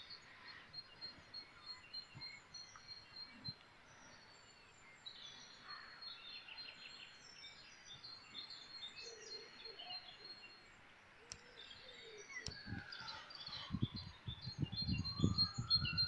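A chorus of small songbirds singing at dusk, faint high chirps, trills and repeated notes overlapping throughout. In the last couple of seconds a low thumping rumble on the microphone comes up over it, along with a slow sliding tone.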